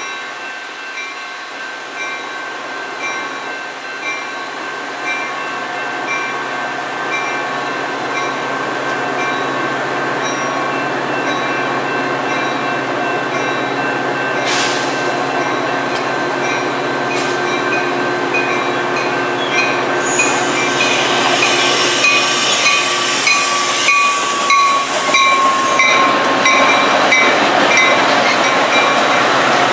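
Grade-crossing bell ringing steadily, about one stroke a second, as a Metra commuter train of bilevel cars approaches. The train noise builds and grows loud about two-thirds of the way through as the cars pass close by, with a brief wheel squeal.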